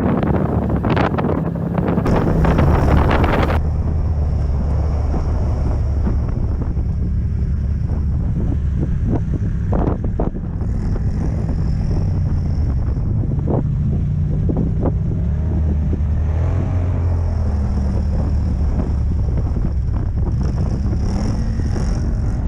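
ATV engine running under way, its pitch rising and falling slowly as the throttle changes, with wind buffeting the microphone for the first few seconds.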